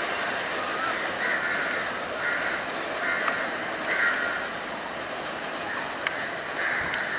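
Crows cawing several times, short harsh calls about a second apart with a gap before a last one near the end, over the steady noise of a slow-moving train in a rail yard. A few sharp clicks sound in the second half.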